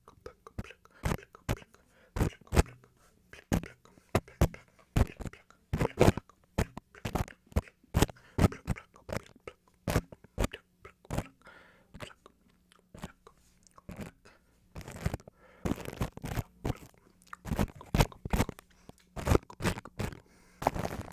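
Close-miked ASMR wet mouth sounds: quick, irregular lip and tongue clicks and smacks, two or three a second, with a denser crackly stretch about fifteen seconds in.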